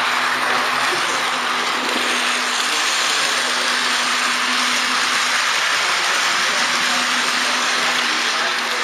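Steady running noise of an H0-scale model train picked up by a camera riding on it: an even whirring rush of the drive and wheels on the track, with a steady low hum underneath.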